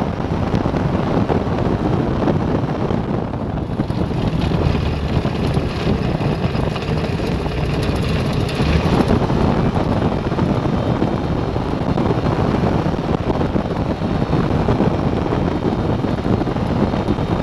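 Ultralight trike taxiing on a paved runway: its engine and propeller running with wheels rumbling over the asphalt, and wind buffeting the microphone throughout.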